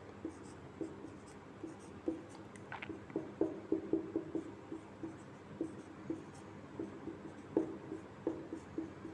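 Marker pen writing on a whiteboard, in short, irregular strokes.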